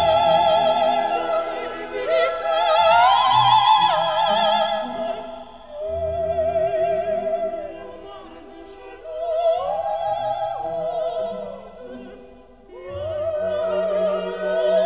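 Background music: a soprano singing opera, holding long high notes with wide vibrato in several phrases with short breaks between them, over a soft accompaniment.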